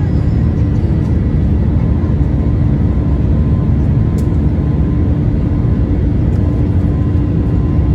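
Steady engine and airflow noise heard inside the cabin of an Airbus A321-211 in flight, its CFM56 turbofans giving a deep rush with a steady hum over it.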